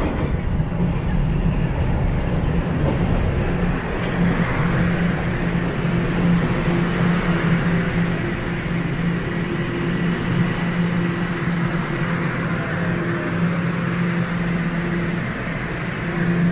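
TTC Line 1 subway train running at a station platform, a loud steady rumble with a low hum. A faint high wheel squeal comes in briefly about ten seconds in.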